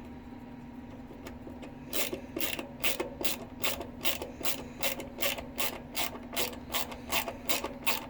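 Hand ratchet tool clicking in a steady rhythm of about three strokes a second, starting about two seconds in, as a screw is worked by hand into pine plywood.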